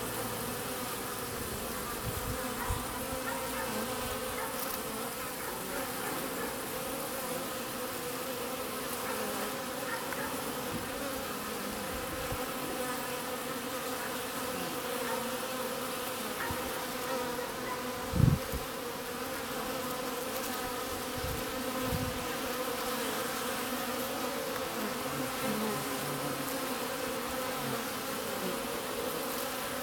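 Steady buzzing hum of many honeybees at a hive entrance, wings droning together at a constant pitch. A brief low thump a little past halfway.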